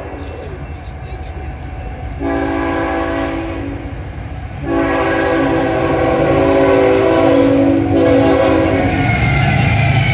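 CN train's locomotive air horn sounding several notes at once: a blast of about two seconds, then after a brief gap a long blast of about four seconds, over the rumble of the approaching train, which grows louder. Near the end the horn stops and the train runs by close, with rushing wheel and car noise.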